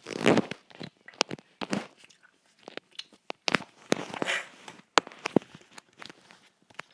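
A person's sneeze right at the start, a short loud burst under half a second long. Scattered short clicks and rustles follow.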